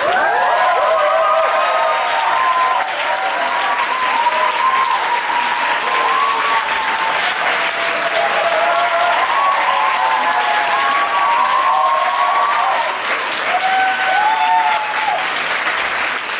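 Loud audience applause with cheering: dense clapping, and many voices whooping and shouting over it.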